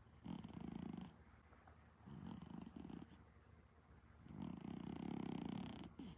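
Exotic Shorthair cat snoring in its sleep: three rattling snoring breaths about two seconds apart, the last the longest, with quiet breathing between them.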